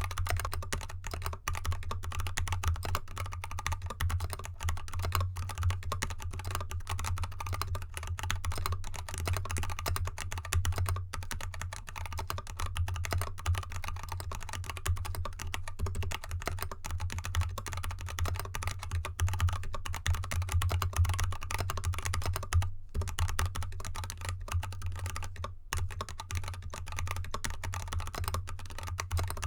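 Continuous fast typing on a GK64X mechanical keyboard with unlubricated Kailh Box Red Pro 35gf linear switches and XDA keycaps, in an anodized aluminium case with dampening foam, the board resting on a desk mat. The clicks run densely, with two brief pauses in the last third.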